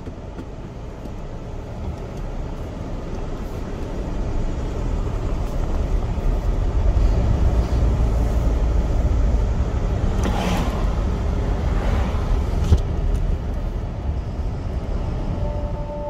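Low road and engine rumble of a moving car, heard from inside the cabin, fading in and growing louder, with a couple of brief louder rushes. Near the end two steady ringing tones of music come in over it.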